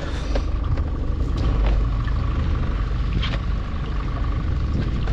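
A small boat's engine running steadily at low revs, a continuous low hum, with a few light knocks over it.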